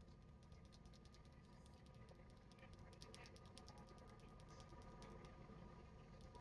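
Faint, rapid typing on a gasket-mounted aluminum mechanical keyboard, the MechLands Blade101: a quick, steady stream of key clicks.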